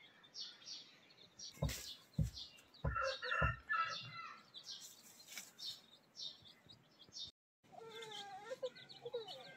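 Young chicks peeping with high, short cheeps, and a mother hen clucking in short, repeated low notes near the end. A few muffled thumps about two to three seconds in.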